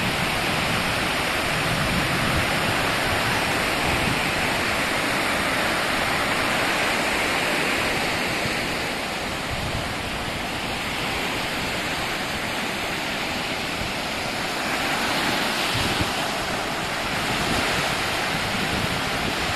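Sea surf washing onto a beach: a steady rush of waves that swells gently a couple of times.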